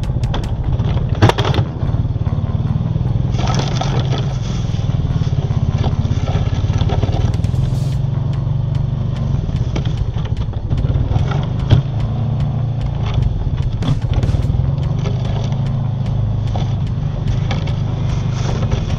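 2021 Honda Foreman Rubicon 520 ATV's single-cylinder engine running steadily under load while its Kolpin X-Factor plow blade pushes and scrapes through heavy snow. A couple of sharp knocks stand out, one about a second in and one near the twelve-second mark.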